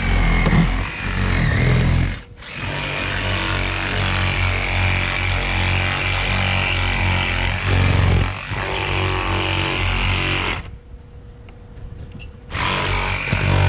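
A power tool running with a loud, steady buzz, cutting off briefly about two seconds in and again for nearly two seconds near the end.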